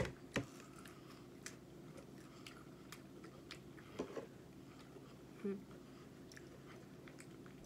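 Close-miked chewing of soft fresh fruit, with scattered sharp, wet mouth clicks and smacks.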